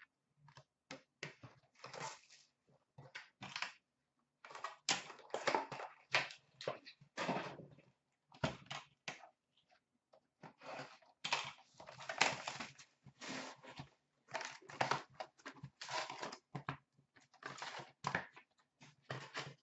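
Cardboard hockey card box and foil packs being handled and opened by hand: irregular crinkling and rustling in short bursts with brief gaps between.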